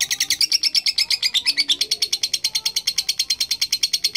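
Lovebird giving its long ngekek song: a fast, unbroken chatter of sharp, high chirps, more than ten a second, running on for several seconds.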